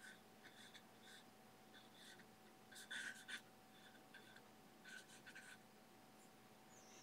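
Faint brush strokes: a natural hog-bristle filbert brush scraping oil paint across a smooth gesso-primed aluminium composite panel, in a run of short strokes, the loudest about three seconds in.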